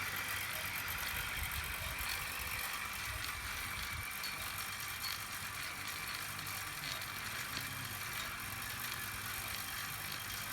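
Radio-controlled model construction machines running: a steady high motor whine with light rattling and scattered small clicks.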